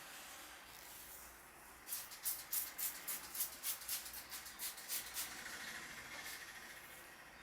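Head-massage 'hair crack': a quick run of about a dozen crisp, dry snaps at roughly four a second, starting about two seconds in and stopping about three seconds later.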